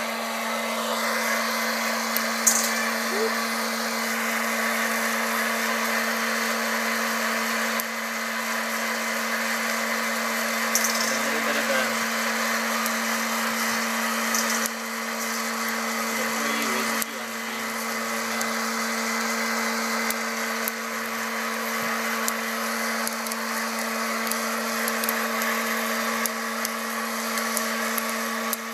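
Hot-air popcorn maker, used as a coffee roaster, running steadily mid-roast: a constant motor hum under the rushing of its fan's hot air.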